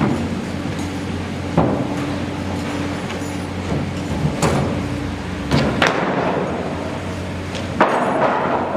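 Construction work: a handful of irregular sharp knocks and clanks, some ringing briefly, over the steady hum of running machinery.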